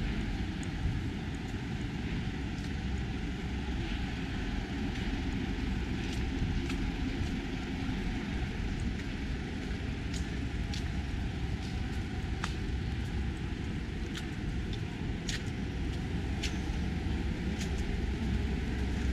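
Street ambience dominated by the steady rumble of passing road traffic, with a few short, sharp clicks scattered through it.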